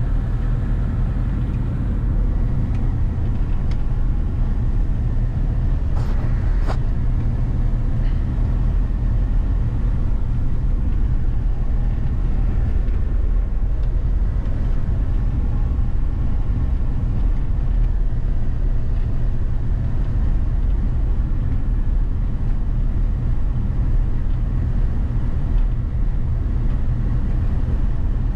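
A car being driven, with steady low road and engine rumble and a couple of faint clicks about six seconds in.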